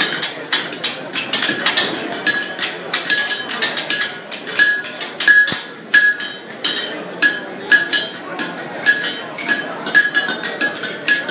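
Hand hammer striking hot steel on a blacksmith's anvil in a steady run of blows, about two to three a second, each with a clear metallic ring from the anvil.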